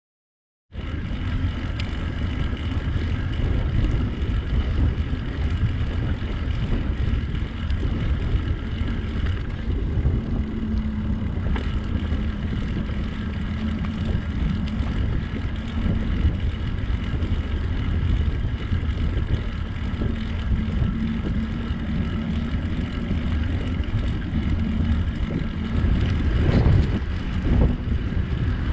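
Wind rumbling on the microphone and rolling noise from a bicycle being ridden, with a faint steady whine above it. It starts suddenly about a second in.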